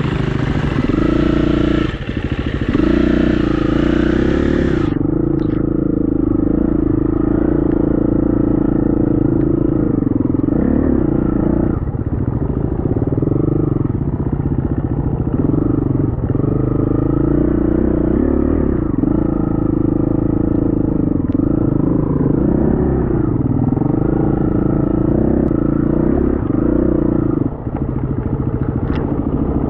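KTM 350 EXC-F's single-cylinder four-stroke engine running under load while being ridden, its revs rising and falling again and again.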